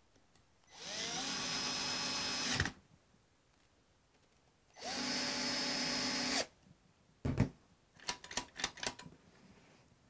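Cordless drill-driver spinning up and running steadily in two spells, about 2 s and 1.5 s long, as it drives the machine screws into a deadbolt's metal interior cover. Near the end there is one knock and a quick run of clicks.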